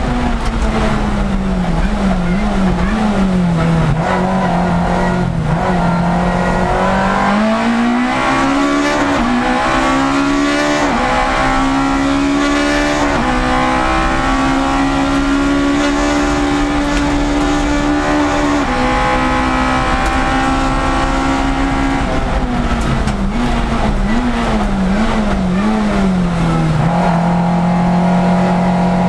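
Citroën Saxo 1.6 hill-climb race car's four-cylinder engine heard from inside the cabin, its revs wavering low and then climbing for several seconds to a high, steady pitch in the middle. The revs then drop, waver again and settle lower near the end.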